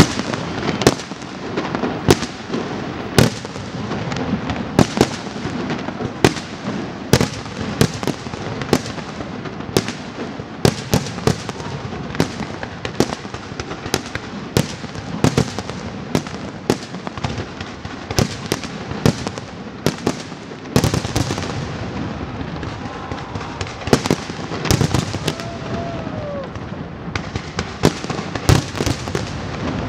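Pirotecnia Martí's castillo fireworks display: aerial shells bursting in a continuous, irregular run of sharp bangs, several a second, over steady crackling.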